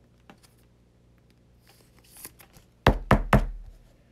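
Three sharp knocks about a quarter second apart: a hard plastic trading-card holder striking the tabletop, after a little rustling and a few faint clicks of handling.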